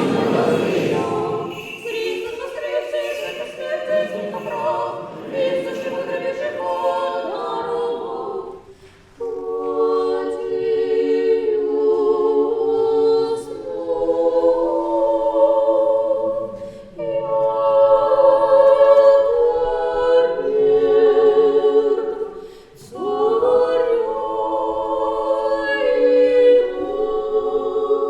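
Orthodox church choir singing unaccompanied liturgical chant in long sustained phrases, with brief breaks about nine seconds and about twenty-two seconds in.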